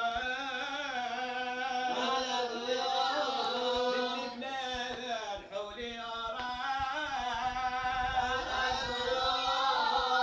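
A man chanting a slow, ornamented melody with wavering pitch, in the manner of Jewish liturgical chant from an archive record.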